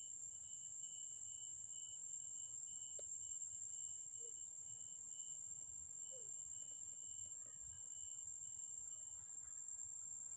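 Steady, high-pitched drone of forest insects, with a fainter note pulsing evenly until about nine seconds in and a single faint click about three seconds in.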